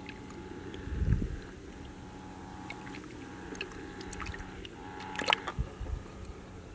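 Faint wet squishing and gurgling from a muddy, water-filled crab hole, with a low thump about a second in and a short cluster of sharp clicks and a knock around five seconds in.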